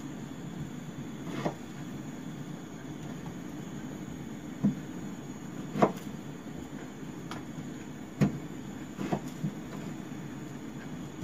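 Kitchen knife cutting sweet potato into chunks in the hand, with about seven short sharp knocks at irregular gaps as the blade cuts through and pieces drop into a plastic basket. A steady low hum runs underneath.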